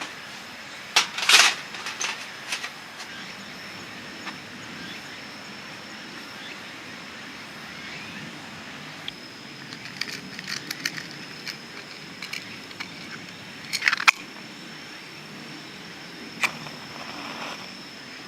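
Sharp clinks and clatters of camp gear being handled, in a few clusters with the loudest about fourteen seconds in, over a steady high insect trill.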